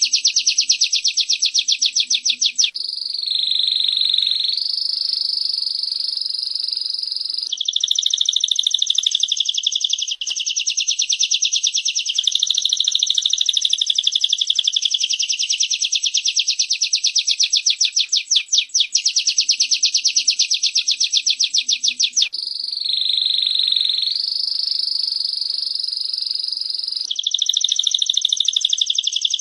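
Female prinia and domestic canary calling: long runs of rapid, sharp repeated chips, broken twice by stretches of smoother, continuous trilling that dips in pitch.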